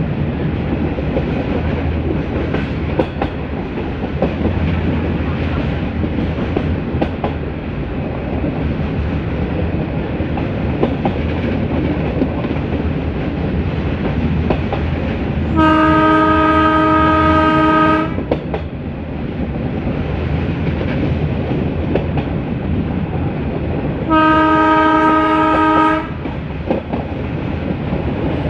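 Metre-gauge passenger train running, a steady rumble with wheel clicks over the rail joints. The YDM4 diesel locomotive's horn sounds two blasts of about two seconds each, some eight seconds apart, past the middle.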